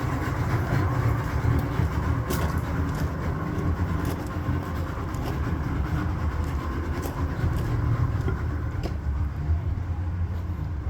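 Yamaha 250 hp VMAX fuel-injected, oil-injected two-stroke V6 outboard idling steadily with an even low rumble.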